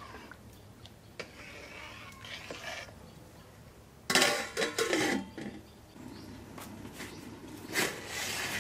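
Cooking utensils clinking and scraping against a pot while rice cooks, with scattered light clicks and two louder spells of clatter, about four seconds in and near the end.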